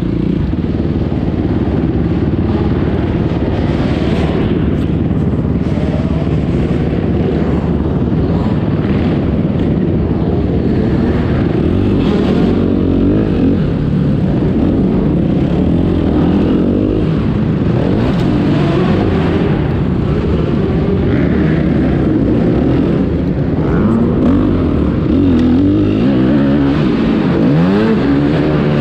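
Motocross dirt bike engine running hard as it is ridden, its pitch repeatedly rising and falling as the throttle is opened and closed.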